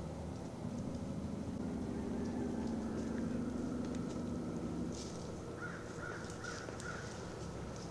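A crow caws four times in quick succession about six seconds in, over a low steady hum and faint clicks.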